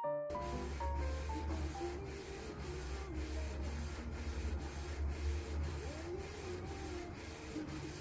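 A printer starts up just after the opening and runs steadily, printing. It gives a low hum with a regular swish about twice a second as the mechanism makes its passes.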